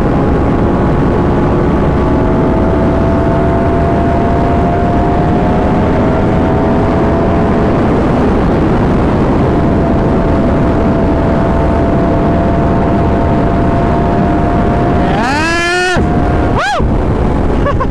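Yamaha R1's crossplane inline-four through an SC Project exhaust, heard from the rider's seat, running at a steady engine speed under heavy wind noise. Near the end it revs up sharply twice in quick throttle blips, the first cutting off abruptly.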